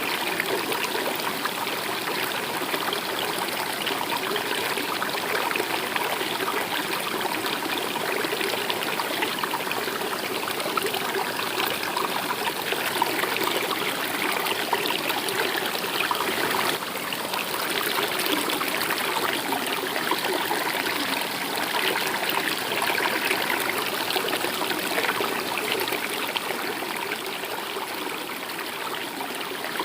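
Running water of a stream flowing steadily, an even rushing trickle without pause.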